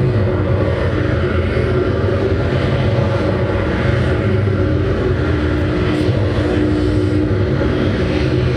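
Loud, dense drone from a live experimental band: several held steady tones over a low rumbling wash of noise, with no beat.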